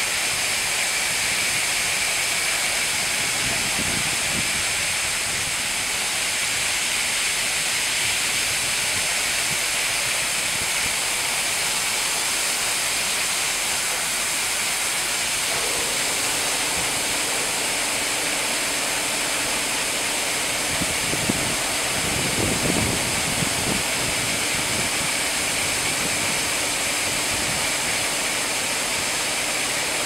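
AA4C AA-360RD touchless car wash spraying high-pressure water and foam over a car with a steady hiss. About halfway through, a low steady hum from the machine joins in.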